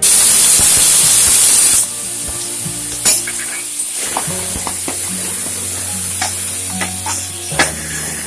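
Ginger, green chilli and garlic paste hitting hot oil in a steel pan: a loud sizzle for the first two seconds that then settles to a steady, quieter sizzle as it is stirred, with a few sharp clinks of the spoon against the pan.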